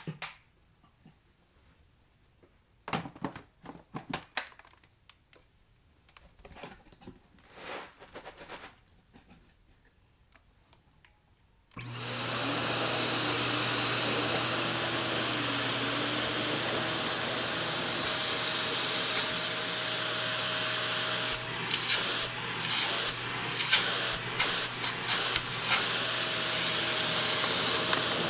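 A few faint handling clicks and rustles, then a vacuum cleaner switches on about twelve seconds in and runs steadily with a low hum. Later comes a run of sharp crackling clicks, the crunch of debris being sucked up, before the motor settles back to its steady sound.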